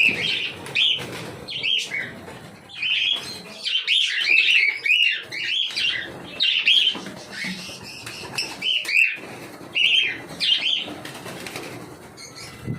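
Cockatiel chirping in quick, repeated short calls, with a fluttering, rustling wing noise beneath.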